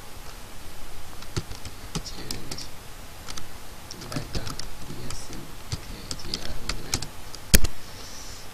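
Typing on a computer keyboard: irregular key clicks as a word is typed, with one much louder key strike near the end.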